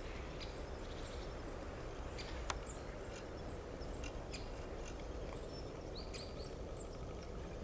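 Quiet outdoor ambience: a steady low background noise with faint, scattered high chirps of small birds. A single sharp click sounds about two and a half seconds in.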